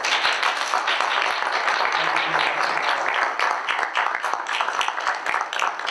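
Audience applauding with many hands clapping together, the clapping thinning into separate claps near the end.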